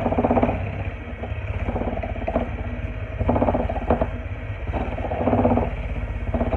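Electric hand mixer running, its beaters working through butter and sweetener in a bowl. The steady motor buzz swells and eases every second or so.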